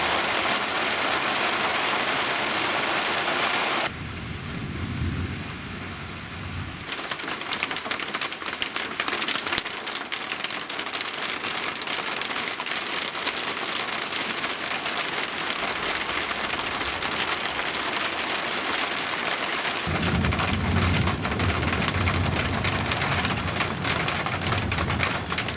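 Heavy rain falling with a dense, steady hiss, and thunder rumbling twice: once about four seconds in for a few seconds, and again for the last five seconds or so.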